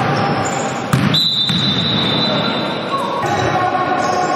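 Referee's whistle blown in one long steady blast of about two seconds, stopping play, just after a sharp knock about a second in. Basketball bouncing and players' voices sound under it in a large gym.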